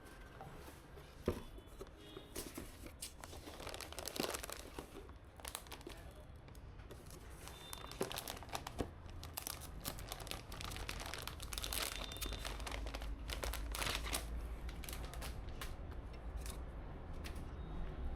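Crinkling and rustling of packaging being handled, with many small clicks scattered throughout.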